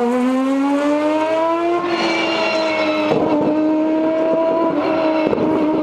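Mazda Furai race car's three-rotor rotary engine at full throttle, its note climbing in pitch for about two seconds and then holding a high, steady pitch.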